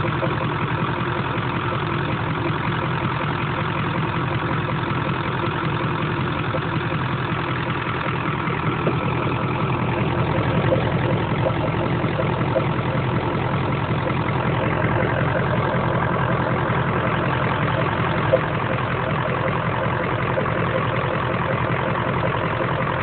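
Engine idling steadily, with a weird noise coming from its air filter, getting slightly louder about halfway through.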